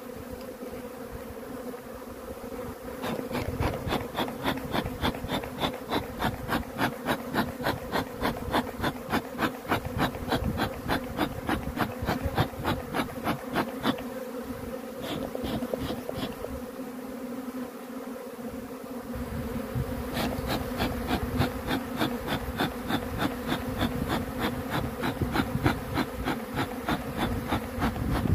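Honeybee swarm buzzing, a steady low hum. For two long stretches, one starting about three seconds in and one a little past the middle, a fast, even ticking of unknown source runs over it.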